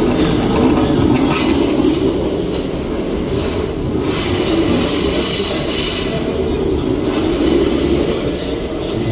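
Train wheels squealing against the rails, several high squeal tones held over a steady rolling rumble.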